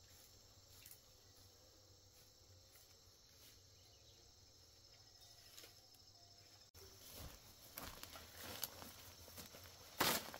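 Faint insects chirring steadily in the open countryside. About two-thirds of the way in, close rustling and crackling of banana foliage and dry leaves takes over as the plants are handled, with a sharp crack near the end.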